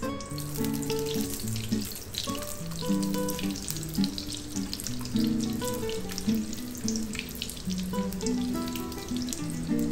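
Butter sizzling and crackling as it melts in a hot aluminium wok, with background music of held notes playing.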